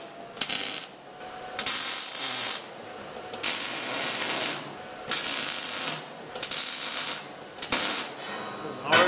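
Arc welder tack-welding quarter-inch steel plate: about six short bursts of arc crackle, each under a second to a second and a half long, with brief pauses between.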